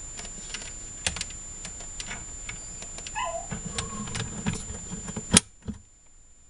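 Irregular clicks, taps and knocks of hands fitting a phone cable into the back of a DSL modem, ending in one sharp click about five seconds in.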